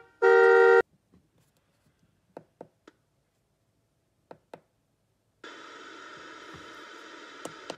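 A ride-on toy car's electronic horn sounds one short, steady beep through its small speaker and stops abruptly; then a few faint clicks of the radio panel's push buttons; from about two-thirds through, a steady static hiss from the toy's FM radio.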